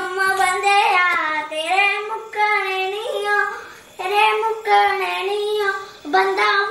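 A young boy singing a Himachali (Pahari) bhajan alone, without accompaniment, in long held notes with short breaks between phrases.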